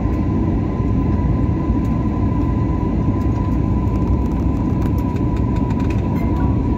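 Steady cabin roar of a jet airliner on its descent to land, heard from inside the cabin, with a thin steady whine running through it.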